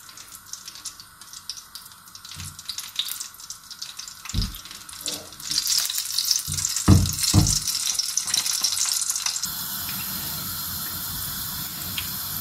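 Hot oil in a nonstick wok sizzling lightly around a small test piece of gulab jamun dough, the sign that the oil is hot enough for frying, with a few low knocks as the pan is handled. About three-quarters of the way in it changes suddenly to a steady, fuller sizzle of a panful of dough balls frying.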